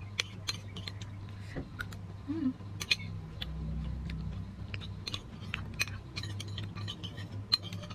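Someone eating chocolate pudding with a metal spoon from a ceramic bowl: scattered light clicks of the spoon on the bowl and soft chewing and mouth sounds, over a steady low hum.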